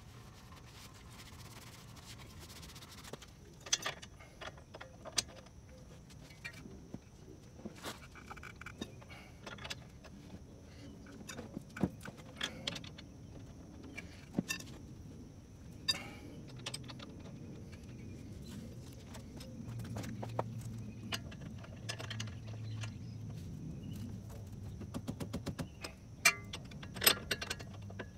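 Scattered metallic clinks and taps as a new wheel hub bearing assembly is fitted to the steering knuckle and its mounting bolts are run in with a socket wrench, with a quicker run of louder clicks near the end.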